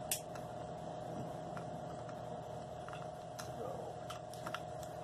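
Scattered small clicks and taps of plastic RC truck parts being handled and fitted together during transmission reassembly, the sharpest just after the start, over a steady background hum.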